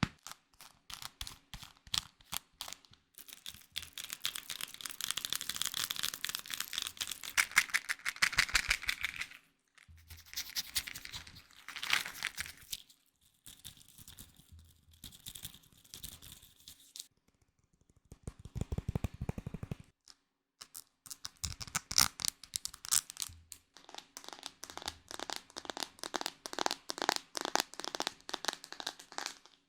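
Close-miked ASMR trigger sounds in a series: rapid tapping and clicking alternating with crinkling and scratching, switching to a new sound every few seconds with short pauses between.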